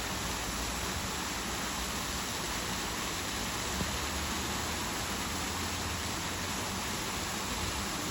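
Small garden waterfall cascading into a pond: a steady, even rush of falling water.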